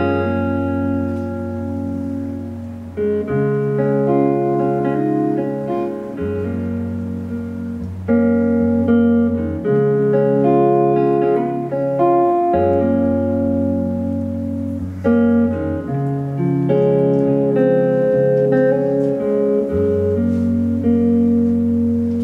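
Instrumental outro of an acoustic unplugged song: guitar plays a slow run of held chords after the last sung line, with no singing.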